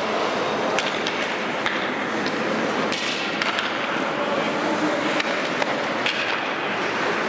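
Ice rink sounds: skate blades and runners scraping across the ice, with frequent sharp clicks of hockey sticks and pucks striking the ice.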